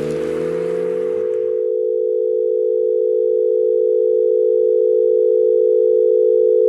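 A steady, loud electronic tone, held unbroken for several seconds, slowly growing louder and cutting off abruptly at the end. A noisier sound fades out beneath it in the first second or two.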